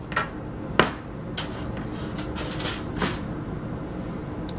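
Metal tongs clicking and clanking against a metal wire rib rack and foil tray as smoked beef ribs are lifted off: several separate sharp clicks over a steady background hum.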